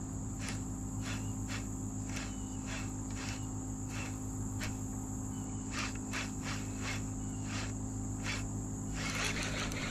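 Insects chirping in short pulses about twice a second over a steady high buzz and a steady low hum; a rushing noise comes up near the end.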